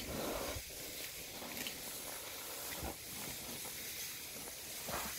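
African elephant cow at very close range, breathing and sniffing through her trunk in soft hissing blows, with light rustling and a couple of dull low knocks.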